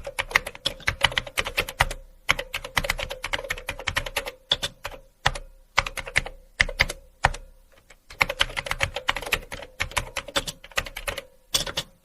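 Typing on a computer keyboard: rapid runs of keystroke clicks, broken by short pauses about two, four and a half, six, eight and eleven and a half seconds in.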